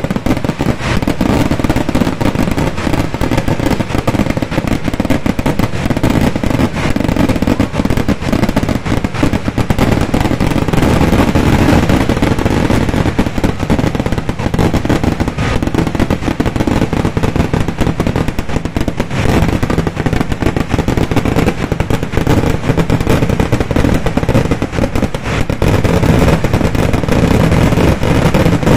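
Kerala temple-festival fireworks (vedikkettu) going off in a continuous barrage: loud explosions packed so close together they run into one unbroken rapid-fire din.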